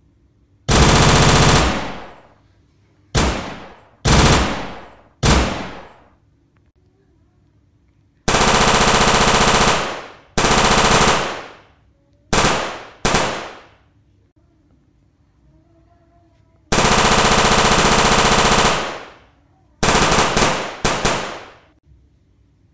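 Automatic rifle gunfire sound effect: bursts of rapid fire lasting one to two seconds, alternating with single shots and short pairs, each trailing off in an echo.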